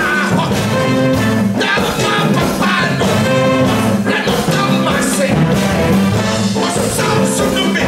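Live West African-style band music: a brass section of trumpets, trombones and saxophone playing over hand drums, with a man singing lead.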